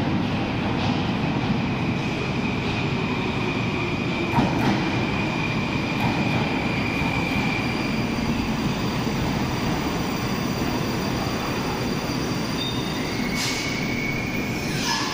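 Moscow Metro "Moskva-2020" subway train pulling into the platform and slowing to a stop, running with a steady rumble. A thin high squeal sounds through the first half and again near the end as it stops.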